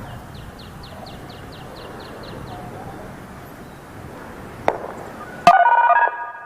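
A small bird chirps in a quick run of descending notes for about two seconds. Later a sharp click, then a sudden loud burst of several steady electronic tones with rapid pulsing for about half a second, settling into quieter held tones near the end.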